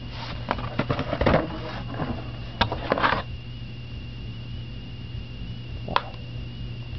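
Corsair mechanical keyboard with red switches being handled and pressed: a quick run of clicks and knocks over the first three seconds, then one sharp click about six seconds in.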